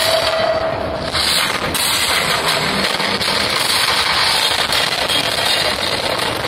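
Loud, steady crackling and hissing noise with many small pops.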